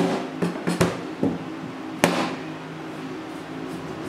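Large kitchen knife cutting and peeling a thick pumpkin rind on a plastic cutting board: about five sharp knocks of the blade in the first two seconds, the loudest about two seconds in. A steady low hum runs underneath.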